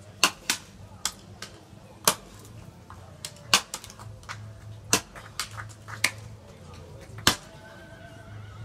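Axes chopping into 250 mm wood blocks in an underhand chop: several choppers' blows overlapping as sharp, irregular chops, the loudest about a second or so apart with lighter strokes between.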